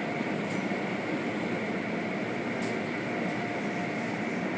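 Automatic tunnel car wash heard from inside the car: water spray and spinning wash brushes on the car, a steady rushing noise.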